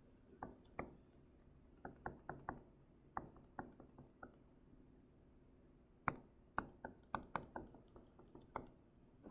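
Pen stylus tapping and clicking on a tablet surface while handwriting, as faint short clicks in two runs with a pause of about two seconds between them.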